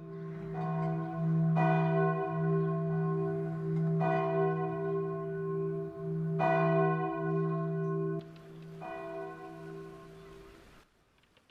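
A large bell tolling: about five strikes at uneven intervals over a long, steady, deep hum, cutting off abruptly near the end.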